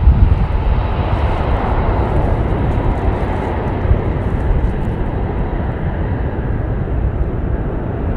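Four Honeywell LF507 turbofan engines of an Avro RJ100 airliner at takeoff power as it climbs out: loud, steady jet noise with a deep rumble underneath, slowly fading as the aircraft moves away.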